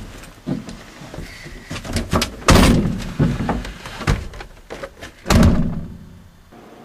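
Vehicle doors being opened and slammed shut, with a few latch clicks and knocks and two heavy slams, one about two and a half seconds in and one about five seconds in.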